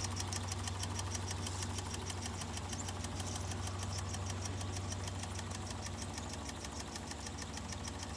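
Empire No. 31 toy steam engine running steadily under steam: a rapid, even beat of short strokes with a steady low hum beneath.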